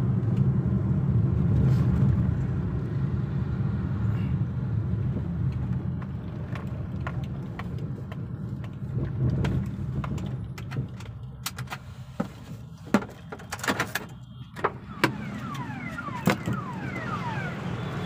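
Engine and road noise of a two-wheeler being ridden, a steady low hum that fades out after about eight seconds. After that it is quieter, with a scatter of sharp clicks and knocks.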